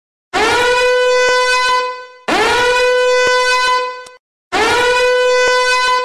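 Loud alarm ringtone: a tone that swoops up in pitch, then holds steady for about a second and a half before cutting off. It repeats about every two seconds, three times.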